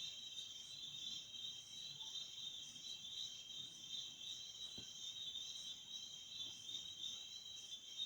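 Steady high chirring of insects, with a single faint click about five seconds in.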